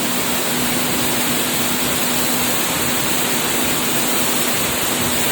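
Heavy downpour of rain, a dense, steady hiss with no let-up, with a steady low hum beneath it.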